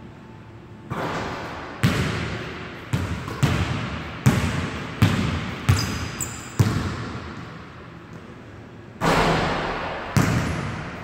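Basketball bouncing and being dribbled on a hardwood gym floor, about ten echoing thuds at an uneven pace with a pause before the last two. A brief high sneaker squeak comes about six seconds in.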